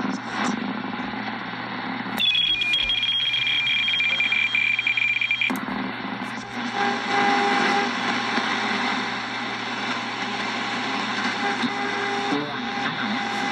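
Yaesu FRG-7 shortwave receiver being tuned across the band, its speaker giving hiss and static. About two seconds in, a steady two-note whistle from a heterodyning carrier comes in with a brief downward slide and holds for about three seconds before cutting off. After that come noisy, garbled signals with fragments of a voice.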